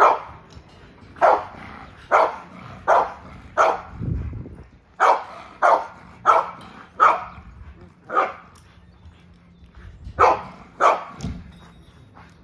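Dog barking repeatedly: about a dozen sharp barks, mostly in a steady run about two-thirds of a second apart, then a pause and two more near the end. A low thud sounds about four seconds in.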